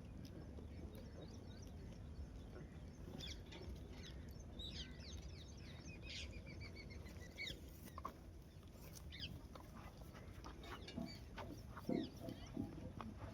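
Faint bird calls, typical of farmyard fowl: short chirps and falling notes, with a quick run of evenly repeated notes about halfway through, over a steady low background rumble.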